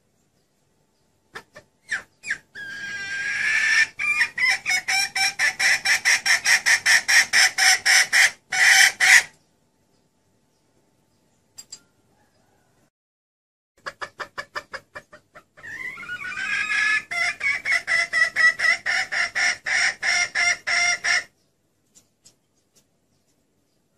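Female junglefowl (ayam hutan) clucking and cackling: two long bouts of rapid, evenly spaced clucks, a few per second, each starting with a few single clucks and running about six seconds, with a pause of about five seconds between them. It is a hen's call played as a lure to draw in junglefowl cocks.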